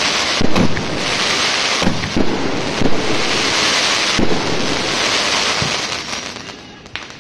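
A 66-shot consumer firework cake (King of Willows) firing its last shots: a thump every second or so over a continuous hiss from the bursting stars. It dies away near the end, after one last sharp crack.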